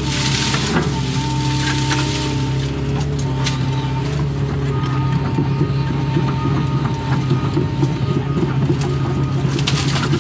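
Doosan excavator's diesel engine running steadily, heard from inside the cab, with a hydraulic whine that comes and goes as the machine works. Scattered short knocks and clicks sound over it.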